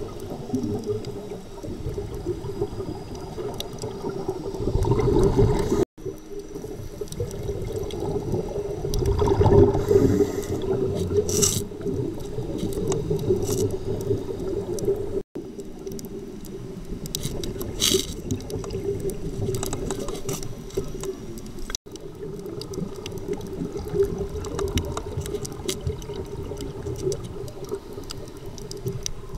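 Muffled underwater sound heard through a camera housing on a scuba dive: a steady low hum with swells of the diver's breathing and exhaled bubbles. It cuts briefly to silence three times.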